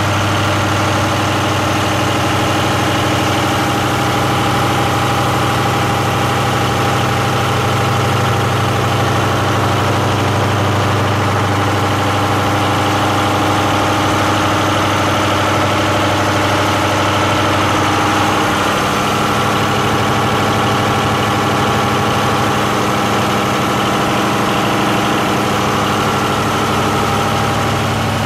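MTU diesel generator set running steadily during a load test, a constant engine hum. About two-thirds of the way through, the engine's note shifts slightly.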